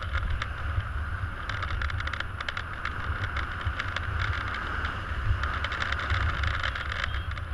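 Airflow over the camera microphone in paraglider flight: a steady low wind rumble with a hiss over it, and spells of rapid fine clicking.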